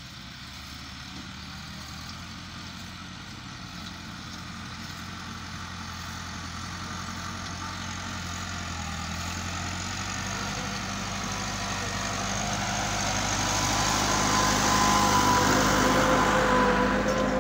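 Tractor diesel engine running steadily under load as it pulls an implement across tilled soil, growing louder as it comes closer, with a higher whine joining in over the last few seconds.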